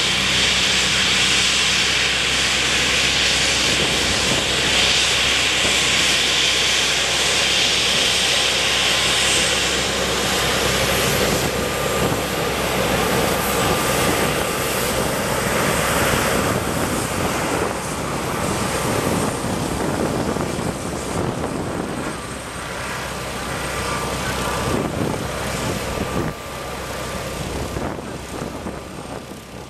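Twin-engine Embraer E-190 jet taxiing, its CF34 turbofans running at taxi power: a loud whining hiss with a steady high tone, fading over the last few seconds.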